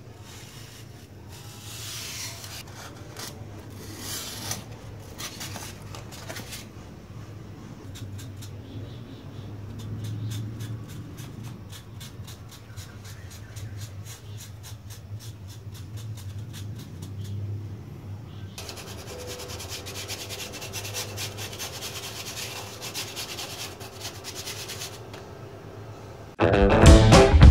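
Rubbing and scraping on styrofoam during handwork: scratchy strokes at first, then a long run of quick small ticks, then steady scratching. Music with drums comes in about a second before the end.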